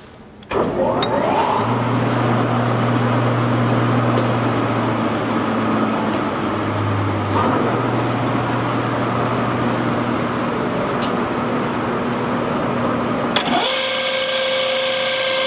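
Large Stanko engine lathe starting up: the main drive motor and headstock gearing spin up with a short rising whine, then run with a steady low hum and gear noise. About thirteen seconds in, the low hum drops away and a higher machine whine with several steady tones takes over as the carriage apron lever is worked.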